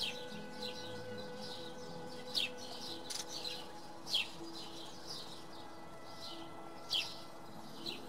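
House sparrows chirping: short, high, falling chirps repeated irregularly, the loudest about two and a half, four and seven seconds in.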